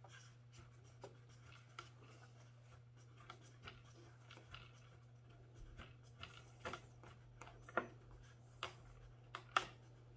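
Faint ticks and scrapes of a screwdriver turning 3 mm by 20 mm screws into a foam RC plane's tail. The clicks get louder and more frequent in the last few seconds. A steady low electrical hum runs underneath.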